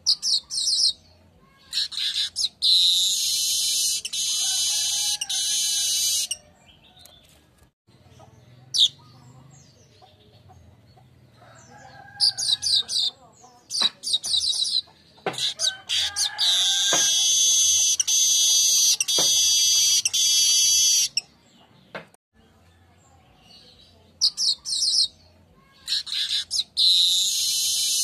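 Weaver (manyar) singing: quick high chirps run into a long, dense buzzing wheeze several seconds long, and the song comes three times with short pauses between. A few sharp clicks fall in the middle song.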